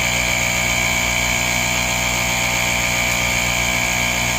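Small portable air compressor (tyre inflator) running steadily, with a low hum and a high whine, as a repaired tyre is pumped back up.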